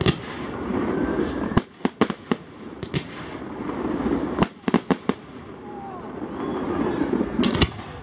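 Firework display: sharp bangs of aerial shells bursting over steady background noise. The bangs come once at the start, in a quick cluster about two seconds in, again around five seconds, and in a pair near the end.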